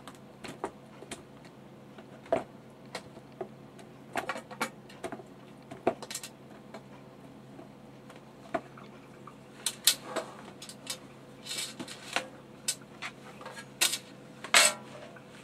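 Raw potatoes being handled, knocking against a plastic storage container and a baking tray: irregular light knocks and clatters, more frequent in the second half, over a faint steady hum.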